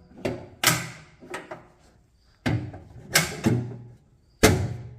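A series of about seven sharp, irregular knocks and clunks, each followed by a brief ringing decay.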